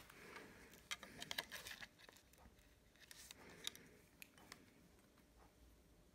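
Near silence with faint scattered clicks and light taps of handling as a soldering iron and its cord are picked up and moved. The clicks cluster in the first couple of seconds and again around the middle.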